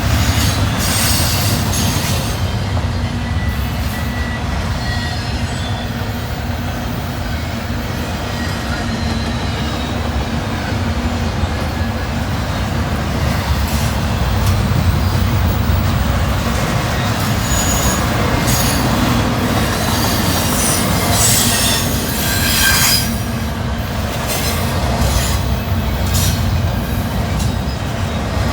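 Freight cars of a long train rolling past close by: a steady rumble of wheels on rail, with wheel flanges squealing now and then, most about a second in and again between about 18 and 23 seconds in.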